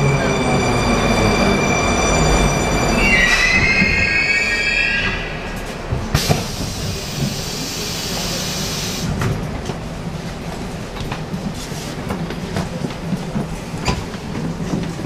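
81-740 Rusich metro train pulling into a station: loud steady high whining tones, which shift and glide about three seconds in, give way to a quieter running sound. About six seconds in a hiss of air lasts some three seconds, then scattered clicks and a low rumble follow as the train stands.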